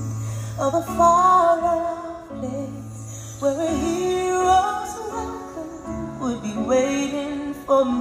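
Show soundtrack music with a woman singing long, held melodic notes that glide between pitches over the accompaniment.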